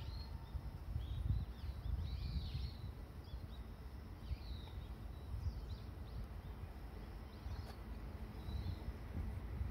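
Small birds chirping in short, scattered calls over a low, steady rumble.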